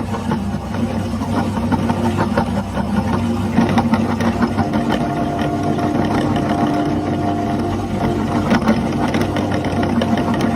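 Electric meat grinder running with a steady motor hum, with irregular small crackles and crunches as something is forced through it.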